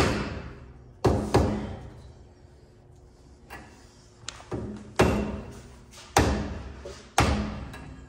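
Mallet tapping on a front wheel hub and drilled disc brake rotor, a series of sharp knocks roughly a second apart, each ringing briefly.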